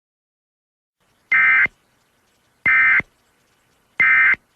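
Emergency Alert System SAME data tones: three short raspy digital bursts about a second and a half apart, the End-of-Message code that closes the alert.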